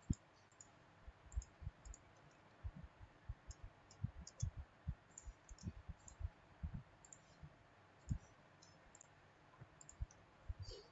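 Faint, irregular clicking of a computer mouse and keyboard, some clicks sharp and light, others a dull tap on the desk.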